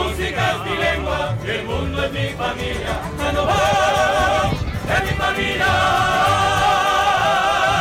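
Live mariachi band with singers performing a song. From about three seconds in, the voices hold long notes with a wide vibrato over a bass line, as at the close of a song.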